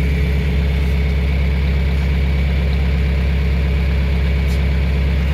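Farm tractor engine idling steadily, with a deep, even hum that does not change.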